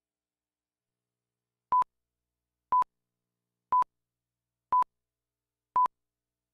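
Countdown leader beeps: five short, identical mid-pitched beeps, one each second, starting a little under two seconds in.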